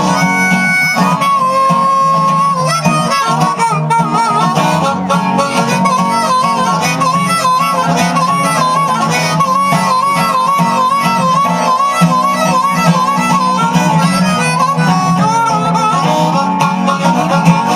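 Harmonica playing an instrumental solo, a melody with many quick warbling trills, over guitar accompaniment.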